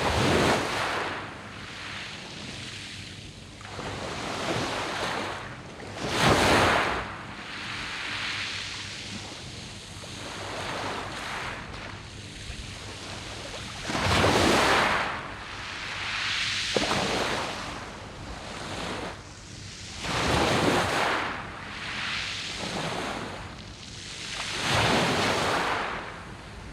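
Sea waves breaking on a pebble beach: five surges a few seconds apart, each swelling to a rush and falling back.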